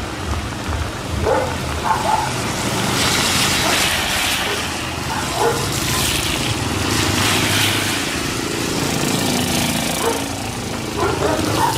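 Steady rain falling, its hiss swelling in the middle, with a dog barking a few times.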